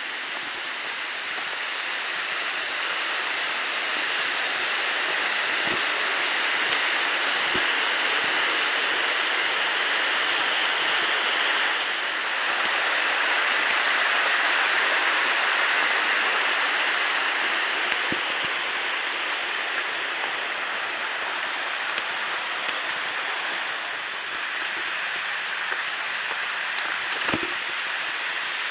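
Waterfall rushing steadily: a dense, even hiss of falling water with no engine under it, swelling slightly in loudness now and then, with a few faint low knocks.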